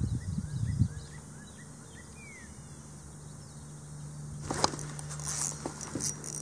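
A bird sings a run of short rising notes over a low steady hum. About four and a half seconds in, a fishing rod and spinning reel are snatched up and handled with a burst of clicking and rattling as the angler strikes a bite.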